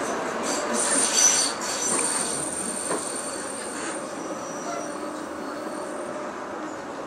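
Tram running on its rails, heard from inside the car. The wheels squeal with high steady ringing tones for the first few seconds, loudest about a second in. After that the tram rolls on with a steady rumble.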